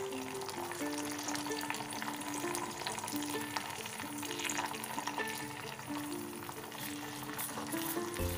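Melted jaggery and ghee bubbling and sizzling in a small steel pan as water is poured in and stirred with a steel spoon. A simple background music melody plays over it.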